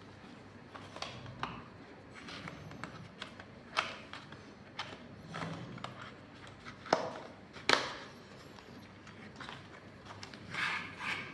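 Hands opening and handling a package: scattered taps, clicks and rustles, with a few sharper clicks in the middle and a longer rustle near the end.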